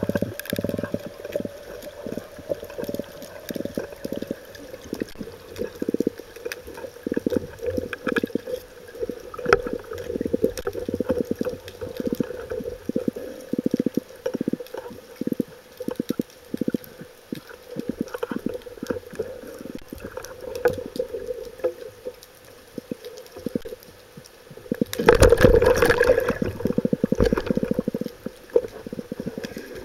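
Underwater sound heard through a diving camera's housing: irregular clicks and knocks from the speargun, shaft and line being handled, over a steady watery background. About 25 seconds in there is a louder rush of water noise lasting about two seconds.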